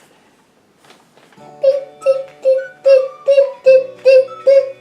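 Background music: after a quiet first second or so, a bouncy tune of short repeated notes, about two and a half a second, starts up.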